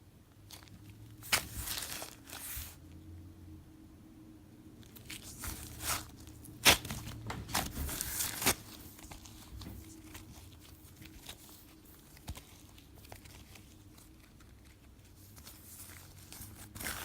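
Hands stretching, folding and squishing a sticky, bubbly slime with little foam chunks mixed in, making wet sticky pops and crackles. It comes in irregular bursts, loudest about six to nine seconds in.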